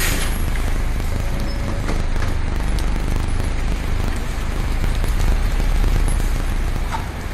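Steady low rumble with scattered light clicks and knocks, typical of a battery-powered rail transfer cart running along its track.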